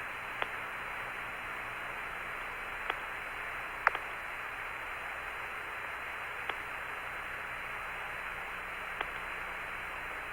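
Steady hiss of static on the Apollo air-to-ground radio link, an open channel with no voice, narrow-band like a radio, broken by a few sharp clicks.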